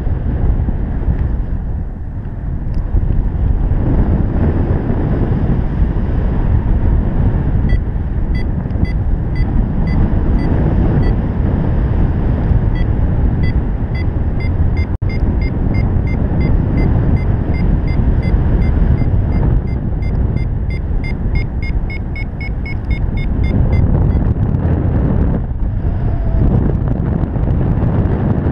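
Wind buffeting the camera microphone during a paraglider flight, with a paragliding variometer's short high beeps joining about eight seconds in. The beeps quicken past the middle, the vario's sign that the glider is climbing in lift, then stop briefly and start again near the end.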